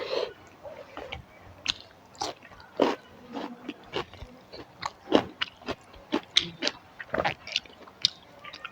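A person chewing and biting a mouthful of rice and curry close to the microphone: irregular sharp mouth clicks and small crunches, about one or two a second.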